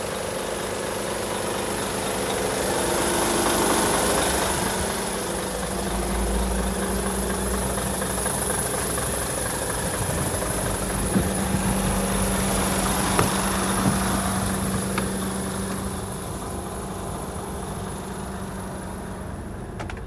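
Mercedes Actros 1840 truck's 400 bhp Euro 6 diesel engine idling steadily, louder and deeper through the middle, with a few light knocks.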